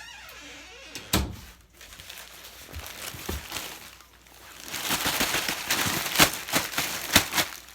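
Crinkling and rustling of a delivered package being handled, with many small crackles over about three seconds near the end. A single knock comes about a second in.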